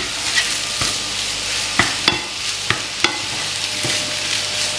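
Potato masala filling sizzling in oil in a nonstick frying pan while a wooden spatula stirs and scrapes through it, with short irregular knocks against the pan.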